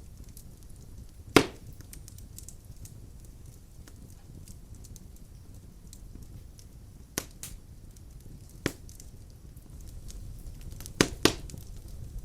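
Wood-burning fire crackling over a low steady rumble, with scattered faint ticks and a few sharp pops: one loud pop about a second in, two more later on, and a quick pair near the end.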